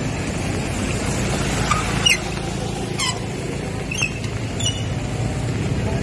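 Steady low outdoor rumble, with a few short high chirps about once a second from near the two-second mark.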